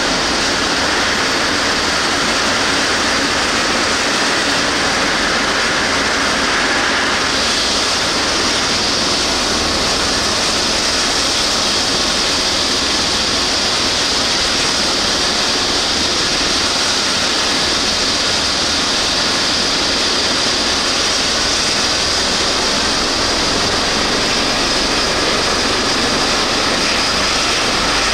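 Eurocopter EC135 rescue helicopter running on the ground during start-up, its twin turbines and spinning main rotor making a steady rushing whine. The higher part of the noise grows stronger about seven seconds in.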